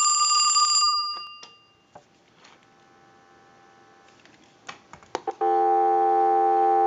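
The telephone's ringer bells ring out as the last ring cycle ends about a second in, and the ringing fades away. After a few sharp clicks, a steady telephone dial tone comes on loudly near the end and holds.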